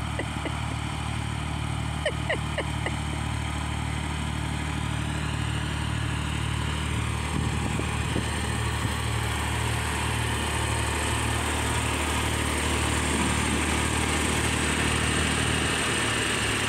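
John Deere 301A industrial tractor's engine running steadily as the tractor drives up and pulls alongside, getting gradually louder as it comes closer, with a change in the engine note near the end.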